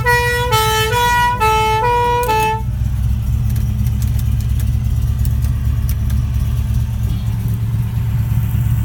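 Police two-tone siren sounding its alternating high-low notes, cutting off about two and a half seconds in, over the steady idle of the Rover SD1's 3.5-litre V8 engine.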